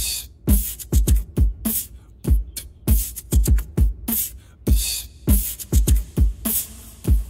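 Beatbox beat: deep booming kick sounds that drop in pitch, with hissing snare and hi-hat strokes between them, in a quick, steady rhythm.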